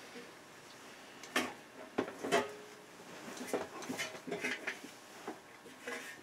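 Sheet-metal top cover of an audio tuner being handled on the bench: a series of short knocks and light metallic clatter, the loudest a second and a half to two and a half seconds in.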